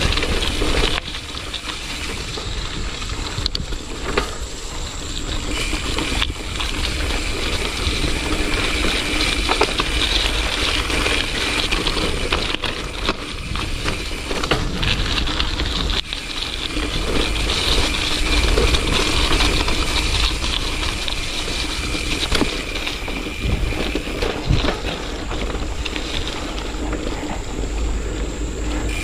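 Mountain bike riding over a rough, muddy dirt trail: the chain and frame rattle and click over the bumps above a constant low rumble of tyre and ride noise.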